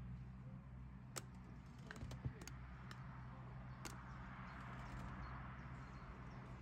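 A motor cruiser's engine running steadily at low revs as the boat manoeuvres slowly out of its mooring, with a few sharp clicks in the first four seconds.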